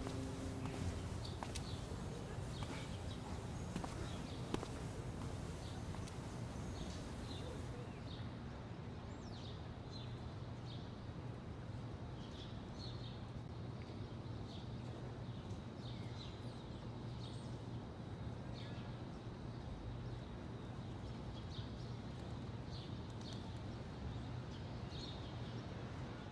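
Outdoor ambience: small birds chirping again and again over a steady low rumble, with a few footsteps in the first seconds.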